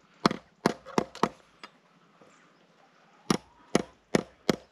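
Hammer striking a length of 6 mm steel rebar laid on a wooden stump, knocking a kink out of it to straighten the bar: a run of about five sharp blows, a pause of over a second, then four more.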